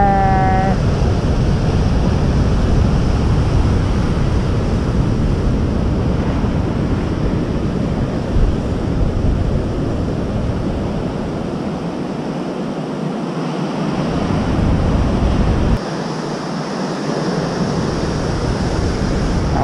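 Ocean surf breaking and washing over rocks, with wind buffeting the microphone as a low rumble. The rumble drops away briefly twice in the second half.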